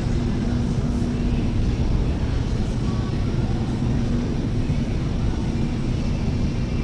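Steady low rumble with a constant low hum, like a vehicle running.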